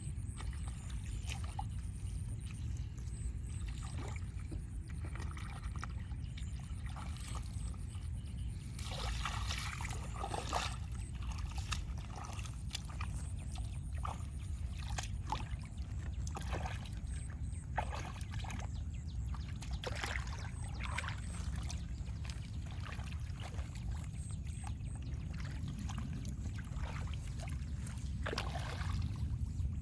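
Water splashing and sloshing in irregular short bursts over a steady low rumble.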